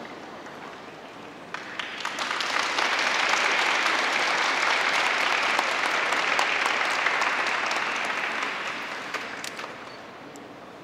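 Spectators applauding: scattered claps begin about a second and a half in, swell into steady applause, then die away near the end.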